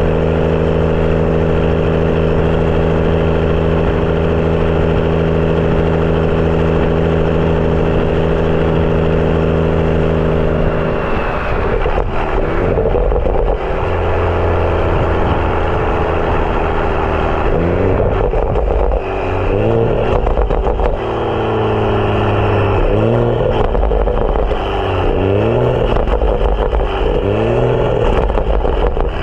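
BMW F30 335i's turbocharged N55 inline-six, breathing through a catless downpipe and M Performance exhaust, while driving. It holds a steady drone for about the first ten seconds, then makes a string of short rising pulls with breaks between them, as through gear changes.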